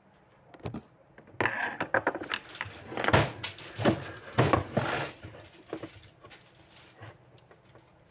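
Plastic casing of a TVS thermal receipt printer being handled: a quick run of clicks, knocks and rattles as it is picked up and turned over, loudest about three to five seconds in.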